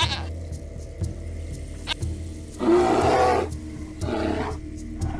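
Brown bear roaring twice: a loud call of about a second, then a shorter one.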